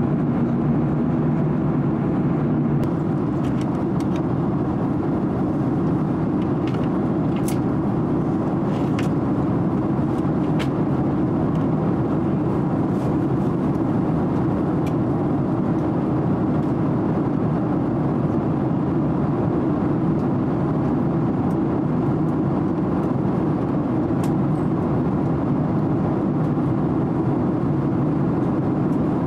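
Steady cabin noise inside an airliner in flight: the even rush of airflow and jet engines, heavy in the low-mid range, with a few faint clicks.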